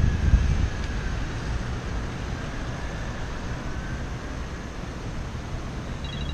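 Wind buffeting the microphone of a camera on a moving bicycle: loud low rumble for the first moment, then easing to a steadier, quieter hiss as the bike slows to a stop. Just before the end a fast, high, even ticking starts.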